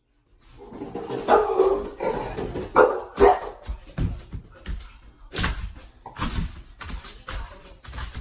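A dog barking in a few pitched calls, followed by a run of irregular sharp knocks and thumps.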